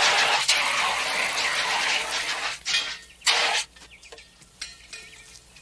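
Firefighter's hose nozzle spraying onto a burnt-out bulldozer to put out the fire: a loud, steady hiss for about two and a half seconds, then two short bursts about half a second apart, followed by faint clicks.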